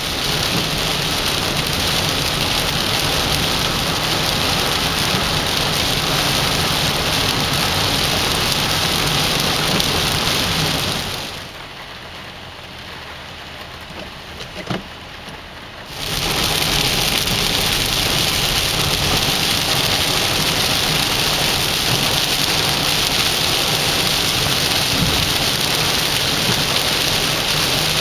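Heavy rain coming down in a steady, loud hiss. About a third of the way through it drops to a much quieter stretch for several seconds, with a single short tap, then comes back at full strength.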